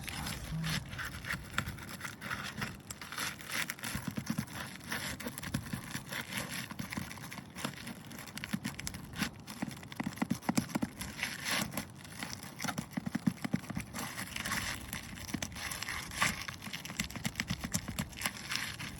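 Asphalt roof shingles being pried up: a run of irregular scraping, crackling and tearing sounds as their sealed edges are broken loose.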